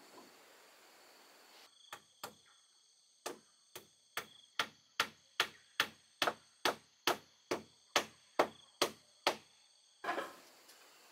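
Hammer driving nails into wooden boards: two blows, a short pause, then about fifteen steady blows a little over two a second.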